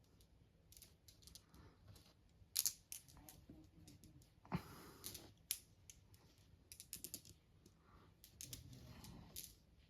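Faint, irregular clicks and taps, a few at a time and unevenly spaced.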